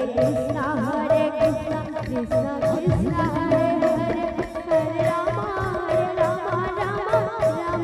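Odia devotional kirtan: a woman sings a wavering, ornamented melody into a microphone over a held steady tone, a barrel drum and small hand cymbals beating a steady rhythm.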